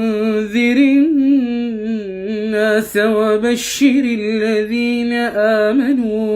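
A solo male voice reciting the Quran in melodic tajweed style, unaccompanied. He draws out long held notes with small pitch ornaments on the words 'andhir an-nās', with a brief hiss of the 's' about three and a half seconds in.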